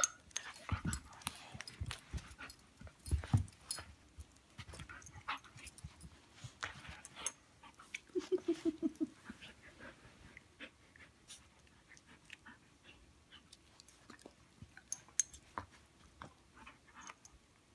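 Siberian husky puppy and adult Siberian husky play-wrestling on carpet: quiet scuffling, mouthing and panting sounds, with soft thumps about one and three seconds in. A short pulsing dog vocalization comes about eight seconds in.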